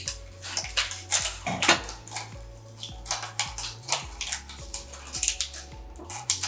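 Thin plastic water bottles crinkling and crackling as they are handled and cut with scissors: many short, irregular crackles and snips. Quiet background music with a low bass line plays underneath.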